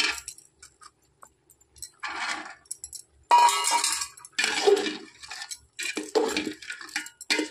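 Metal ladle scraping and knocking against the inside of an aluminium cooking pot (handi) while stirring and mashing a simmering vegetable curry, in a series of irregular strokes.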